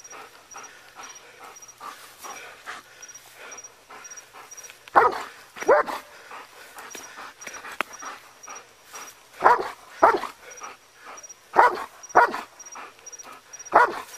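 Police K-9 dog barking in short pairs of barks, a pair every two to four seconds from about five seconds in.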